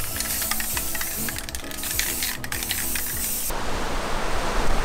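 Aerosol spray-paint cans hissing in spurts with short breaks, over background music. About three and a half seconds in, the sound changes to waves breaking on a beach.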